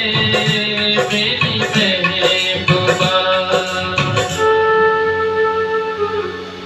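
Recorded backing music for a Hindi film song, with tabla-style percussion and a flute-like melody. About four and a half seconds in, the beat drops out and long held notes carry on, growing softer near the end.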